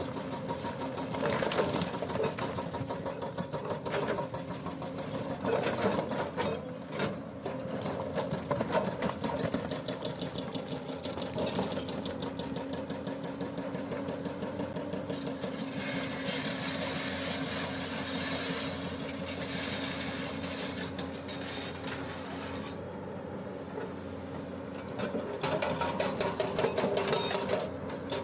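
Hydraulic breaker on a Hyundai 210LC-7H excavator hammering with rapid, evenly repeated blows, over the excavator's diesel engine running under load.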